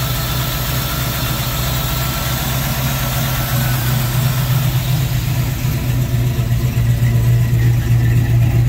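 Fox-body Mustang's V8 idling steadily on Terminator X fuel injection with its stepper idle air valve, heard through long-tube headers, true dual exhaust and Flowmaster mufflers. It grows louder in the second half as the tailpipes come closer.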